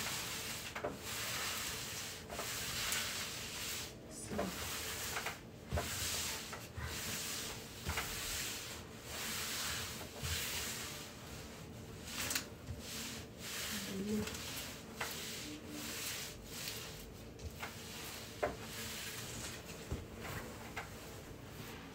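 Printed fabric of a finished skirt rustling and rubbing against a table top as it is smoothed, spread out and folded by hand, in irregular swishing strokes with a few sharp clicks.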